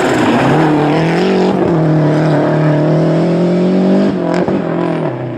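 Rally car engine at high revs under load, its pitch slowly rising, with a sharp break and a couple of cracks about four seconds in as the driver lifts or changes gear.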